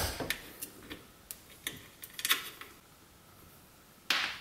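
Small metal clicks and taps from a small screwdriver working on a little metal part from a disassembled electric motor, with a sharp click at the start and a brief cluster of ticks about two seconds in. A short scraping rustle follows near the end.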